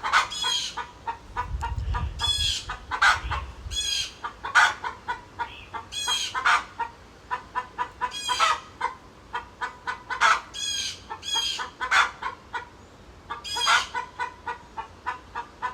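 Chickens clucking and squawking in agitated, repeated calls, with one short call after another.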